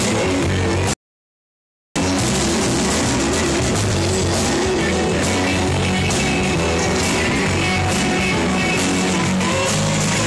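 Loud rock music with guitar, playing continuously except for a complete cutout lasting about a second near the start.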